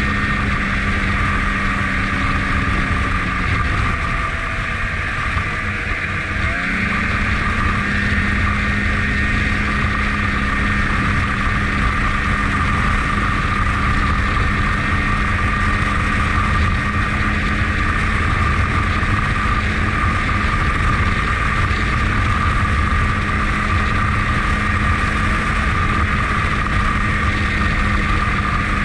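Ski-Doo snowmobile engine running steadily at trail speed as it is ridden. About four seconds in the engine speed drops for a couple of seconds, then rises back to a steady pitch.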